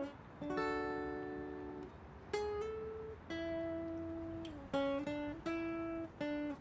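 Solo acoustic guitar playing an instrumental passage: chords struck about six times and left to ring, with short breaks between them.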